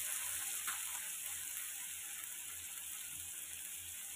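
Chopped onion and freshly added tomato sizzling in oil in a kadai, with one spatula tap against the pan about a second in; the sizzle slowly dies down.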